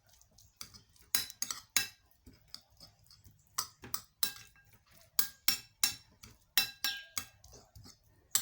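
A spoon stirring and scraping in a plate, mixing ginger and garlic: irregular clinks and scrapes, a few a second, some ringing briefly.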